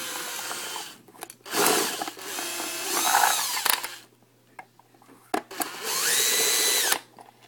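Makita drill driving out Phillips screws, running in three bursts: one ends about a second in, a longer one follows with its speed changing, and a short one near the end spins up and winds down. Small clicks come between the bursts.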